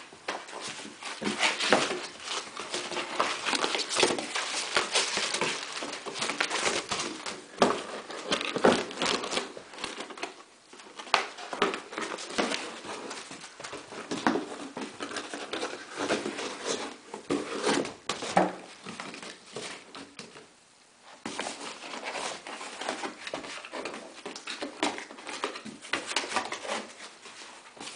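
A border collie puppy scrabbling at and mouthing a cardboard box: a busy, irregular run of cardboard scraping, crinkling and knocking, with a short pause about two-thirds of the way through.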